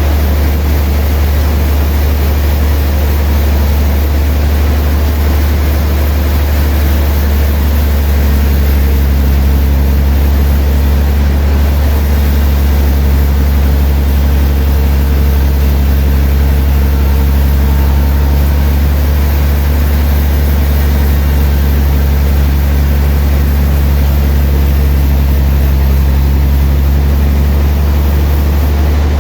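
Sawmill machinery running steadily with a loud, low hum; its tone shifts slightly about eight seconds in.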